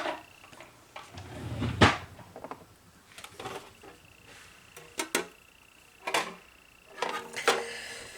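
Clicks and knocks of small hard objects, such as nail polish bottles and tools, being handled and set down on a desk, the sharpest knock about two seconds in. A faint steady high tone runs through the second half.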